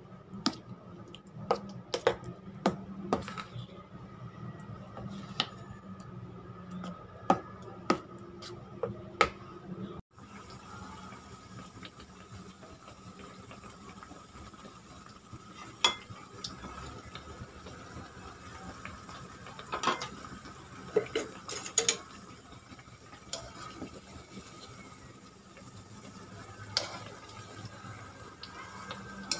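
A metal spoon stirring thick fritter batter in a stainless steel bowl, clinking sharply against the metal. About ten seconds in, the sound cuts to fritters frying in oil in a pan: a light steady sizzle with occasional clicks of tongs against the pan.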